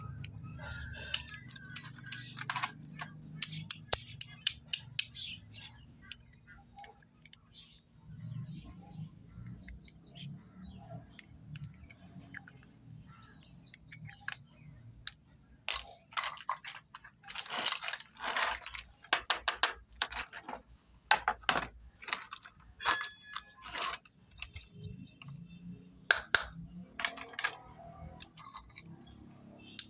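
Small plastic toy cosmetics and accessories being handled and set down, giving irregular clicks, taps and light clatter that come thickest past the middle.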